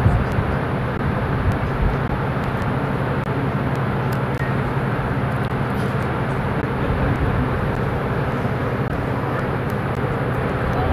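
A cruise ship under way: a steady low machinery hum under an even rushing noise.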